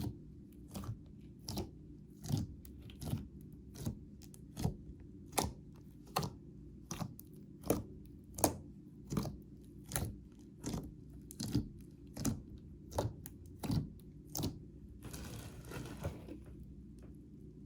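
Slime being squeezed and pressed by hand, giving a sharp click or pop about every three-quarters of a second, then a softer crackly stretch near the end.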